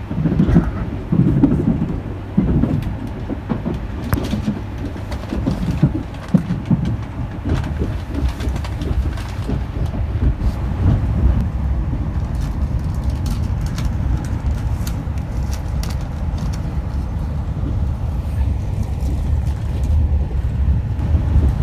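Limited express train in motion, heard inside the passenger car: a steady low rumble of wheels on rails, with irregular knocks and clunks through the first several seconds.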